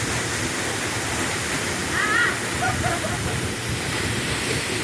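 Waterfall: a steady rush of falling water. A brief faint high call cuts through about two seconds in.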